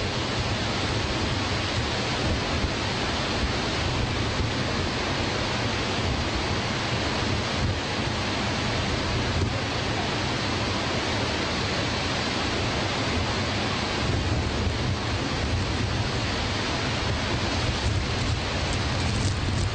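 Water pouring over Niagara's Horseshoe Falls: a steady, unbroken rush.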